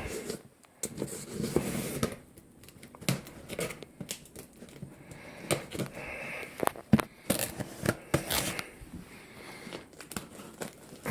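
Packaging being opened by hand: irregular crinkling, rustling and tearing, with many sharp little clicks and snaps.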